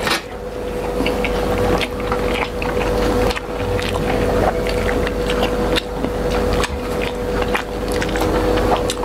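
Close-miked eating sounds: chewing, and fingers mixing rice and curry on steel plates, with many small clicks and squelches. A steady hum-like tone runs underneath.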